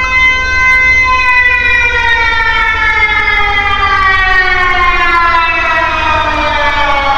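Emergency alarm siren sounding one loud tone, held steady for about a second and then sliding slowly down in pitch.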